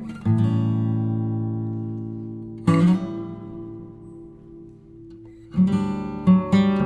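Background music of acoustic guitar: a strummed chord a moment in and another near three seconds, each left to ring and fade, then quicker strumming from about five and a half seconds.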